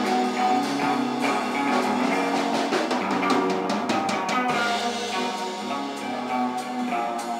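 Live instrumental band playing: a drum kit with electric guitars through small combo amps, the guitars holding ringing notes. A run of quick drum hits comes about three to four seconds in.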